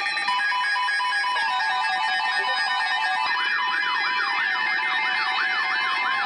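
Several electronic alert tones layered at once: steady and beeping pitches, joined about three seconds in by a siren-like warble that sweeps up and down about three times a second.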